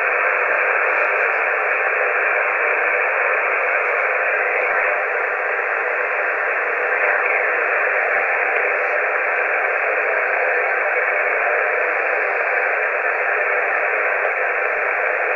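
Steady static hiss from a CB radio receiver on the 27 MHz band between transmissions, with no voice on the channel. The hiss is confined to a narrow, telephone-like pitch range.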